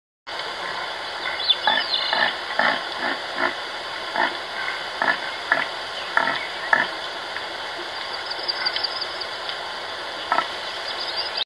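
Herd of red deer hinds moving through snow-covered scrub: a run of short, evenly spaced sounds, about two or three a second, over a steady hiss, with a few high chirps.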